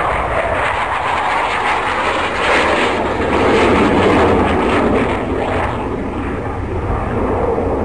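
Twin-engine aircraft flying a low pass, its engine noise swelling to a peak about halfway through and then easing off.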